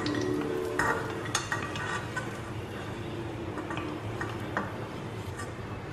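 A wooden spoon scraping and tapping in a stainless steel pan as fried cashews and raisins are scooped into a small steel bowl, giving a few light clicks and clinks over a faint sizzle of hot ghee.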